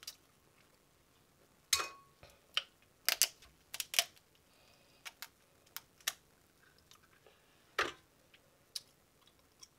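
Snow crab leg shells cracking and snapping as they are broken apart by hand: about a dozen sharp cracks at irregular intervals, the loudest about two and three seconds in.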